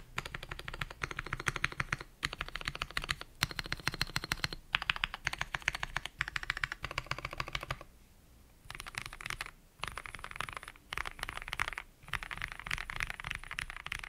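Typing on a modded Akko ACR Pro Alice Plus mechanical keyboard with an aluminium plate, lubed KeyFirst Gateron Cream linear switches and low-profile PBT keycaps. The keystrokes come in quick runs of a second or so with brief pauses between them, and a longer pause about eight seconds in.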